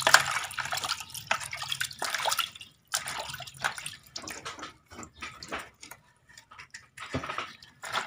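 Water splashing and sloshing in a plastic basin as hands rub and rinse the dirty rubber seal of a washing machine drain valve. The splashes are irregular and let up briefly about six seconds in.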